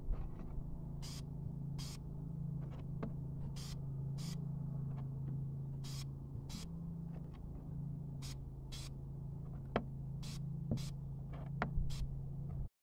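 Krylon fluorescent UV blue aerosol spray paint sprayed in short, quick bursts, about a dozen of them spaced a second or so apart, laying on a final coat. A steady low hum runs underneath, and the sound cuts off abruptly near the end.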